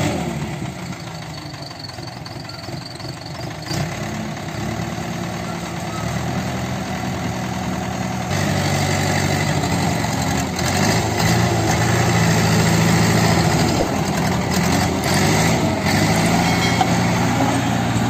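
JCB backhoe loader's diesel engine running steadily, growing louder about eight seconds in.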